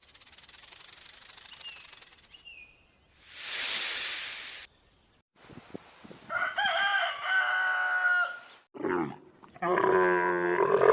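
A run of separate animal sound clips: first a fast, high-pitched pulsing sound, then a short loud hiss, then a rooster crowing for about three seconds, and near the end a lower drawn-out animal call begins.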